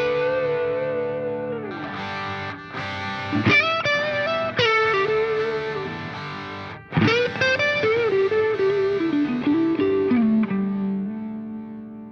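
Background music: a distorted electric guitar plays a lead melody with bends and slides over held chords, ending on a long held note that fades out.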